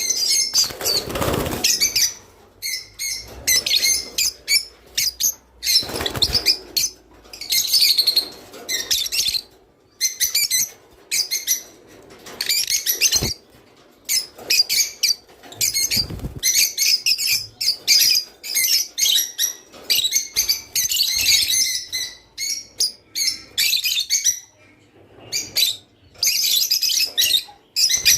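A flock of rosy-faced lovebirds chattering: quick, shrill chirps in bursts with short pauses between, and a few fluttering wing sounds.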